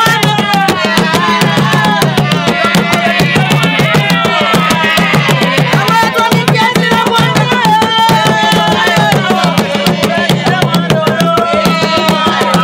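Traditional drums beating a fast, steady rhythm, with singing over them.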